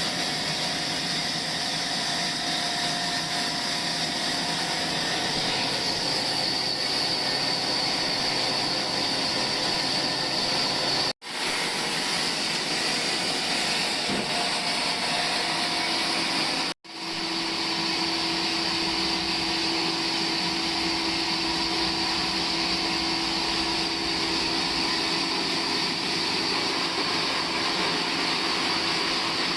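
Sawmill machinery running with a steady, loud mechanical whir. It cuts out abruptly twice for a split second.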